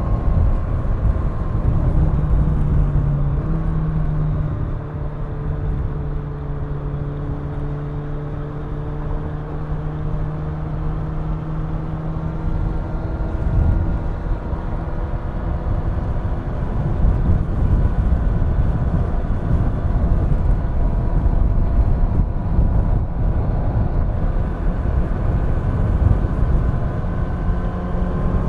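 Kawasaki Ninja 1000's inline four-cylinder engine cruising at speed, its pitch drifting slowly up and down with the throttle, over low wind and road rumble.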